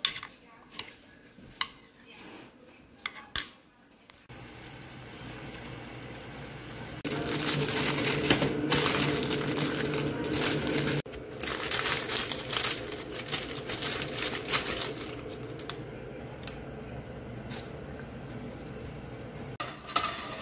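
A metal spoon clicking sharply against a ceramic bowl a few times as eggs are beaten. Then plastic instant-noodle packets crinkling and rustling as they are handled, loudest for a few seconds in the middle and softer after.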